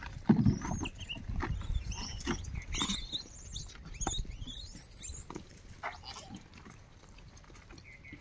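Bunches of bananas knocked and rustled as they are pulled from a car boot, with a loud thump near the start and high squeaky animal calls in the first half.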